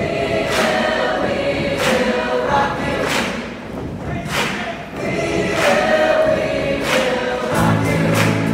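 Large high-school choir singing with accompaniment, over a sharp beat that falls about every second and a quarter. A low bass line comes in near the end.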